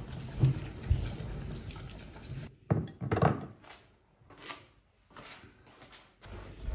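Metal wire whisk knocking and scraping against a ceramic bowl of batter in a few short bouts, over a low background hum.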